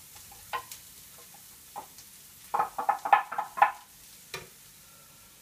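Onion and freshly added grated carrot frying in a pan with a faint sizzle, while a wooden spatula knocks and scrapes against the pan and bowl, with a quick run of loud knocks about halfway through.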